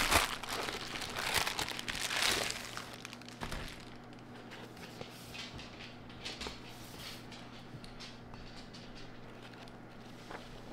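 Plastic bubble mailer crinkling as it is handled and a paperback pulled out of it, loudest for the first three and a half seconds. Then softer handling sounds and faint ticks as the book's pages are flipped.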